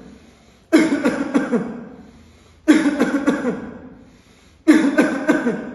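A person coughing in three strong bouts about two seconds apart, each a quick run of several coughs that trails off. It is a pattern of repeated bouts commonly seen in asthma.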